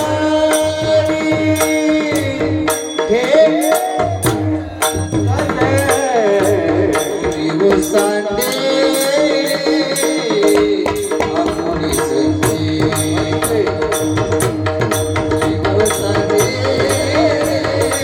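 Marathi kirtan devotional music: a singer's melody wavering over steady held drone notes, with tabla and jingling hand percussion keeping a steady beat.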